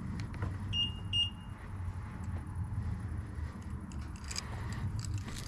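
Two short electronic beeps about a second in, typical of a car's cabin chime, over a low steady rumble from a BMW 530i Touring's engine and cabin. A few light clicks follow near the end.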